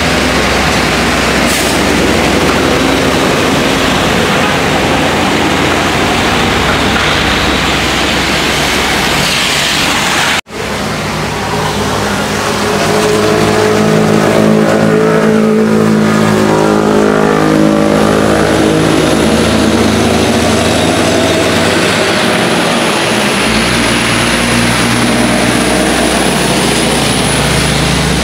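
Heavy diesel trucks passing on a wet road, their tyres hissing through the water over their engines. The sound cuts out for an instant about ten seconds in. After that a truck's engine drone stands out, its pitch slowly shifting as it goes by.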